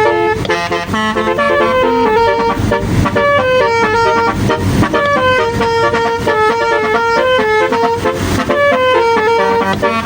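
Telolet-style multi-tone bus horn playing a melody in quick stepped notes, several horn tones sounding together. A few short noisy bursts come in about three, five and eight seconds in.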